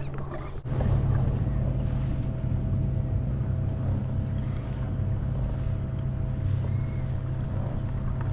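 Boat motor running steadily on the water: a low, even hum with a faint higher whine above it, starting abruptly about half a second in.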